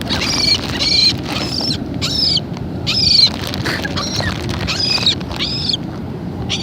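Seagulls calling: a run of short, high, arching cries, one after another, over a steady low background noise.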